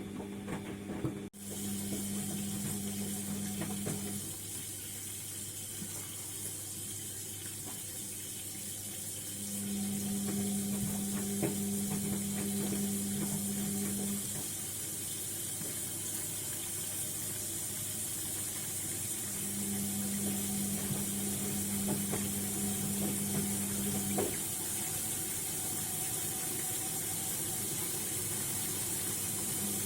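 ATLANT washing machine mid-cycle: a steady rush of water with a low hum, and a motor tone that runs for about five seconds, stops for about five, and comes back, over and over.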